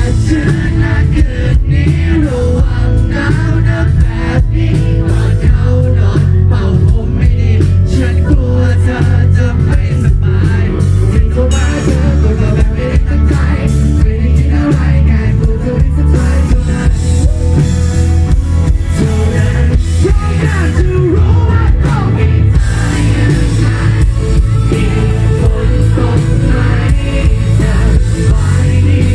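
A live pop-rock band playing a song with singing, over drum kit, bass and guitar.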